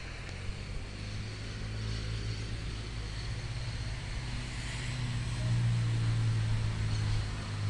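A motor vehicle's engine running, a steady low hum that grows louder a little past halfway.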